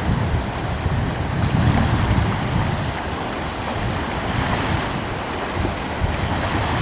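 Ocean surf: waves breaking and washing in a steady roar, with a deep rumble that swells and eases.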